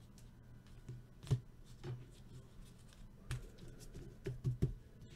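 Trading cards being handled and flipped through by hand: scattered light taps and clicks, the sharpest about a second in and several close together near the end, over a faint low steady hum.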